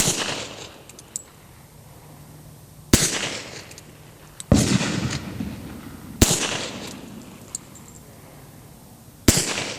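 Five shots from a Beretta 96D double-action-only .40 S&W pistol, fired slowly one at a time, about one and a half to three seconds apart. Each shot is a sharp crack with a short echoing tail.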